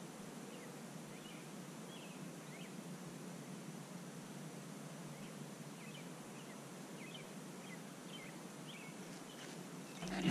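Quiet outdoor night ambience: a steady low hiss with faint, short chirps every second or so. A sudden much louder noise starts right at the end.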